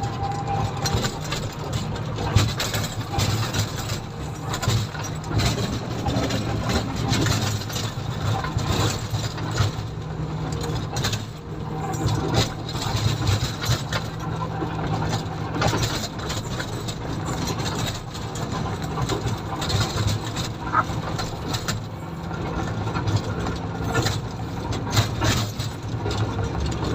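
Komatsu motor grader's diesel engine running steadily while the machine grades the road, with frequent short rattles and knocks over the engine hum.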